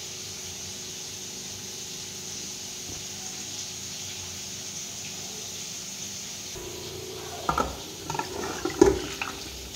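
A steady hiss. In the last couple of seconds a metal pressure cooker knocks and scrapes against the rim of a metal kadai several times as curry is poured from one into the other.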